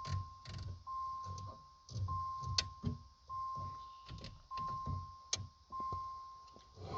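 A steady high electronic tone repeating about once a second in a car with the key on accessory, over faint rhythmic low thumps and clicks.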